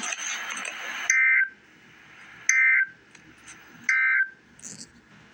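Emergency Alert System end-of-message data signal: three short, harsh two-tone digital bursts about a second apart, the SAME code that closes an alert broadcast. A loud burst of hiss runs for about the first second, just before them.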